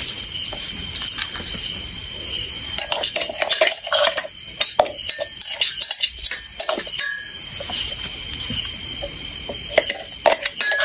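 A metal spoon scraping and tapping against a stainless-steel mixer-grinder jar as ground spice mix is knocked out of it, giving irregular clinks and knocks. A steady hiss with a faint high whine runs underneath.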